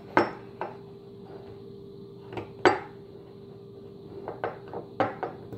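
Sharp metallic clicks and clacks of a nickel boron AR-15 bolt carrier group being taken apart by hand against a wooden table, with one loud clack about halfway through.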